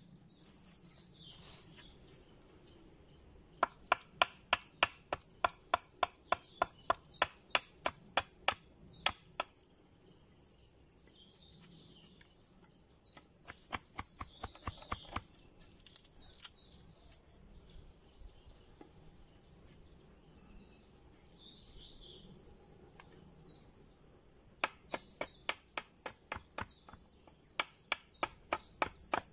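Small hatchet chopping into a green wood stake, quick sharp knocks about three or four a second in two runs, one near the start and one near the end. Birds chirp in the quieter stretch between.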